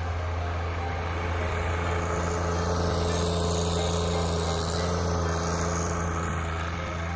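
John Deere 1025R compact tractor's three-cylinder diesel engine running steadily as it pushes snow with its front loader bucket, growing louder as the tractor passes close by and easing off near the end.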